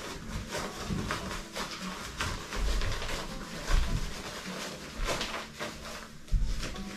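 Deflated Montbell inflatable sleeping pad being folded and rolled up by hand: its thin ripstop polyester fabric rustles and crinkles, with soft, uneven thumps of handling as air is pressed out.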